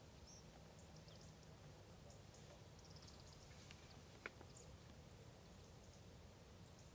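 Near silence: a faint low rumble with scattered faint, high, short chirps of small birds in the background, and one sharp click about four seconds in.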